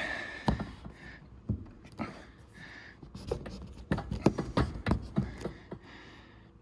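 Scattered clicks, knocks and rubbing as a rubber hose is crammed onto a plastic barbed elbow fitting and a small hose clamp is worked into place by hand. The clicks come thickest from about three to five seconds in.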